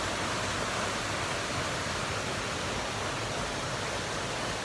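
Small waterfall and stream rapids pouring into a rock pool: a steady rushing of water.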